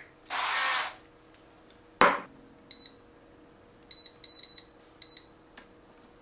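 A short hiss of spray oil, then a loud clunk about two seconds in as the basket is pushed back into an Innsky air fryer. After that come five short high beeps from the fryer's touch panel as the time and temperature are set.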